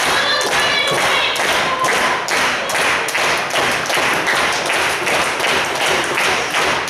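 Crowd clapping in unison to a steady beat, with a voice calling out briefly near the start.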